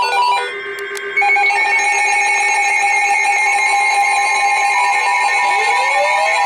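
Emergency Alert System attention signal: a loud, steady two-tone alert tone that starts about a second in after a brief lower tone, marking the start of a new weather warning broadcast. A rising tone joins it near the end.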